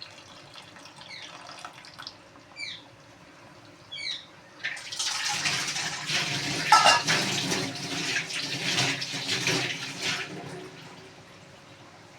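Water splashing and pouring for about five seconds as soaked tamarind is rinsed and squeezed out in water for the tamarind extract. Before it, a few short high falling chirps.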